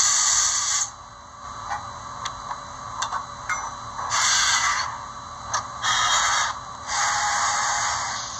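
Märklin HO Railjet Taurus model locomotive's sound decoder playing its coupling/uncoupling effect through the onboard speaker: several short hisses, each under a second, with light clicks between.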